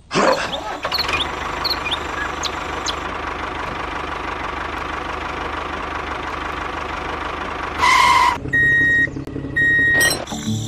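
A tractor engine sound for the toy tractor starts up and runs steadily. About eight seconds in comes a louder half-second blast with a steady pitch, followed by two short beeps.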